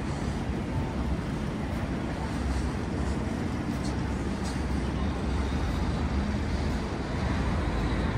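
Steady city street noise of passing road traffic, with a constant low rumble.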